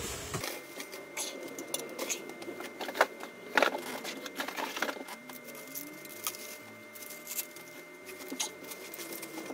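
Plastic wrapping rustling and crinkling as a chrome five-star office-chair base is handled and unwrapped, with a couple of sharp knocks about three seconds in.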